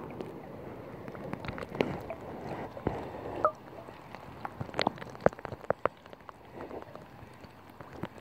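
Handling noise from a phone camera being moved about: a run of irregular clicks and taps, with a brief squeak that falls in pitch about three and a half seconds in.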